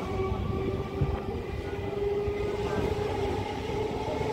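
Suburban local train running: a continuous rumble and rattle of the moving coach, with a steady whine held at several pitches above it.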